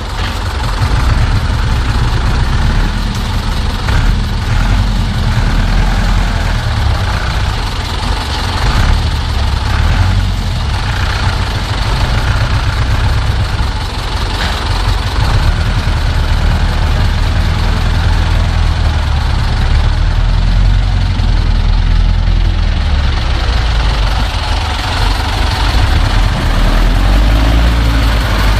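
Zetor tractor's diesel engine running steadily under load as it hauls a trailer through deep mud, a loud low-pitched drone.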